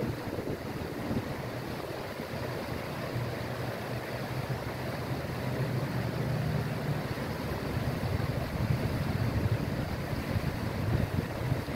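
Steady rush of a shallow river running over rocks and small rapids, with wind buffeting the microphone.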